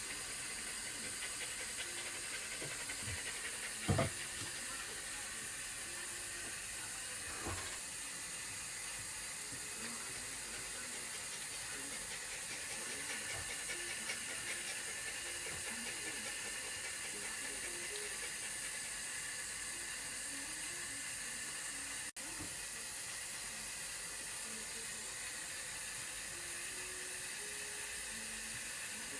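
Steady hiss of running water, with a short knock about four seconds in and a softer one about seven and a half seconds in.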